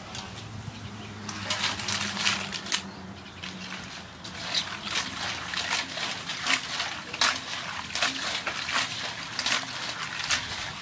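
Razor clams being washed by hand in an aluminium basin of water: water sloshing and splashing, with irregular sharp clicks of the shells knocking together, starting about a second in and running at a few a second.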